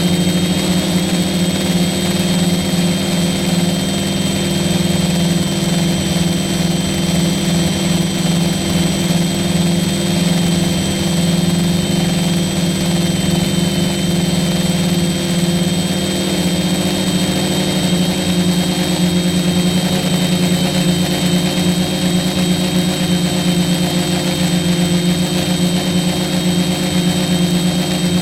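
F450 quadcopter's brushless motors and propellers running steadily in flight: a continuous buzzing hum with a thin high whine above it, the pitch wavering slightly.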